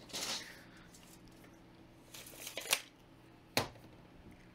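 Handling noises: brief rustles of tent fabric and gear, one building to a sharp scrape near the middle, and a single sharp knock about three and a half seconds in, over a faint steady low hum.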